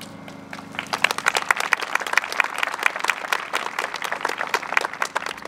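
Audience applauding: many people clapping, starting about half a second in and carrying on steadily.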